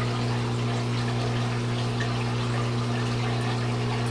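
Aquarium pump humming steadily, with water running through the tank's overflow.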